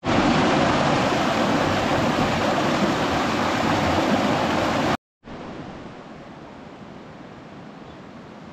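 Rushing stream water, a loud even rush for about five seconds; after a sudden cut to silence it comes back as a much quieter steady rush.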